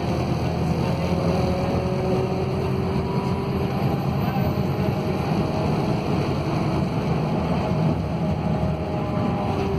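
A Scania DC09 five-cylinder diesel city bus engine running steadily under way, heard from inside the passenger cabin, with a constant low rumble and several whining tones from the engine and driveline.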